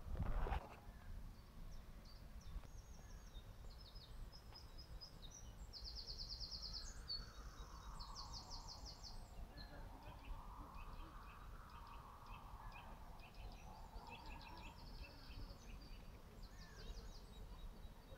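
Faint outdoor ambience: small birds singing in the background, many short rapid high trills, over a low steady rumble, with a broader distant sound that swells and fades in the middle. A short knock of handling noise right at the start is the loudest thing.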